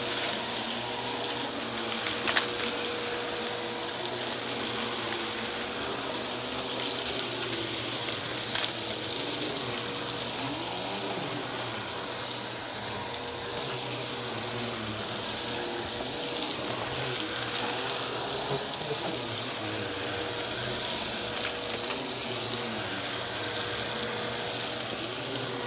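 Upright bagless vacuum cleaner running steadily over carpet, its motor holding a constant pitch with the brushroll turning. A couple of sharp clicks stand out about two and nine seconds in.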